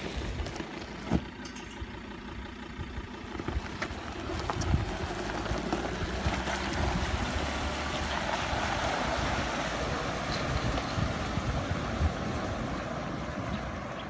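Ford Ranger PX2 pickup's engine running as it drives into and through a flowing river, with a rushing wash of water pushed up by the truck that builds from a few seconds in and is strongest midway.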